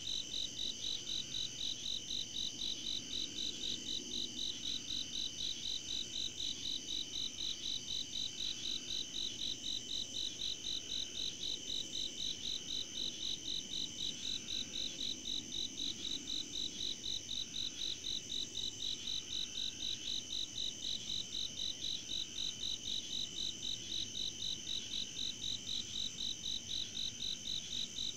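Chorus of night-singing insects: a high, evenly pulsing chirp at about three pulses a second over a steady higher-pitched drone.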